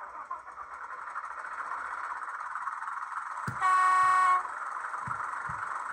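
Sound-fitted OO gauge Hornby Sentinel diesel shunter model: its LokSound 4 Micro decoder plays a steady diesel engine sound through the small on-board speaker, with a horn blast lasting just under a second about three and a half seconds in.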